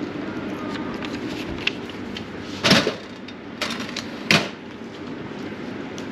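A few short, sharp knocks and clacks, the loudest about two and a half seconds in and two more a second or so later, over a steady background hum.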